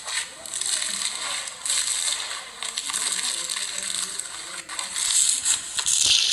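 Slime being squished and worked by hand: a steady stream of small crackling clicks and pops, getting louder near the end.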